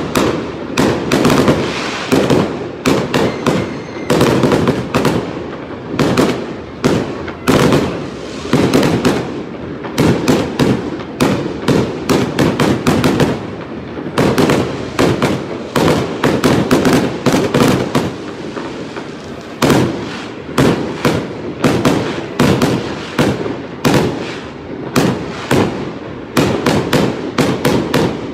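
Fireworks display: aerial shells going off in a rapid, unbroken run of bangs, several a second, over a constant low rumble.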